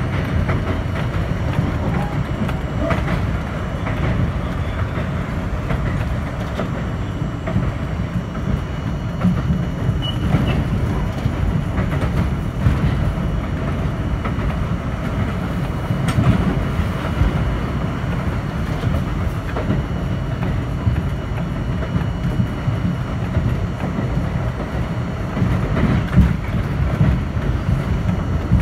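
R42 subway train running along elevated track, heard from inside the front car: a steady rumble of steel wheels on rail, with occasional sharp clicks from rail joints.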